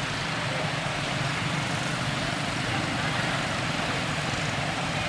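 Steady outdoor background noise, an even hiss with a low hum beneath it and no distinct events.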